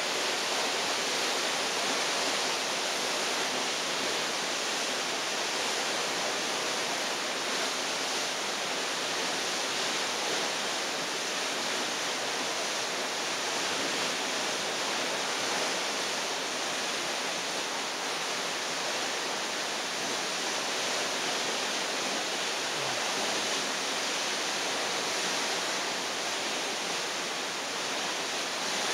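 Steady, even rushing hiss with no pitch, strongest in the upper range and with little deep rumble, keeping the same level throughout.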